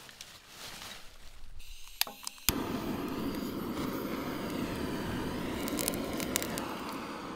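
Lump charcoal clattering and settling in a grill, then two sharp clicks and a gas blowtorch lit with a sudden steady roar, blasting flame into the charcoal to start it; the roar cuts off near the end.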